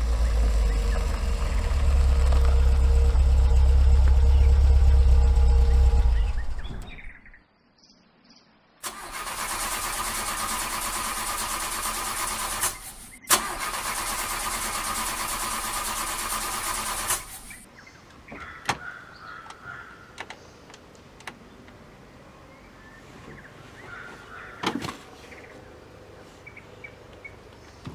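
Small hatchback car's engine running as it drives up a dirt track, fading out about seven seconds in. After a short near-silent gap, a loud steady hiss comes in for about eight seconds, broken once briefly in the middle. Then it is quiet with a few sharp clicks, one of them a car door opening near the end.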